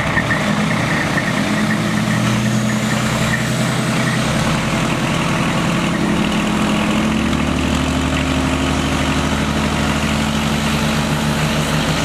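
Cummins turbo-diesel engine of a lifted pickup running under heavy load in four-low as it pulls against a fire truck on a tow strap; the engine note shifts pitch a few times as the throttle changes, and a faint high whistle rises slowly over several seconds.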